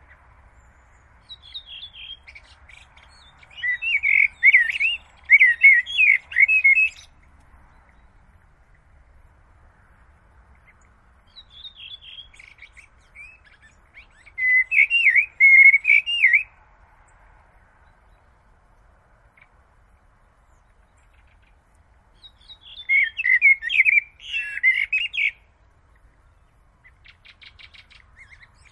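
Common blackbird singing: three phrases of quick, varied whistled notes, separated by pauses of several seconds, with fainter notes near the end.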